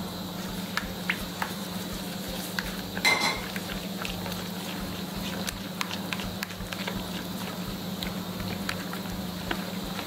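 A gloved hand stirring and squeezing a runny mix of egg, sugar, melted butter and oil in a ceramic bowl: faint, scattered wet clicks and taps over a steady low hum, with one brief louder sound about three seconds in.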